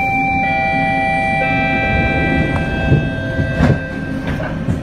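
A London Underground train running, heard from on board: a steady rumble with several held whine tones from the electric traction equipment, and a few knocks from the wheels over the track in the second half.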